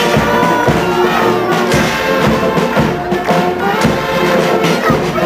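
Marching brass band playing a tune in the street, with a drum and cymbal beat about twice a second.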